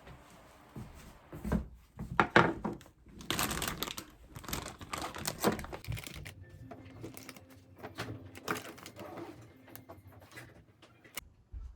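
Rustling and crinkling of things being handled, with irregular light knocks and taps, and a sharp click near the end.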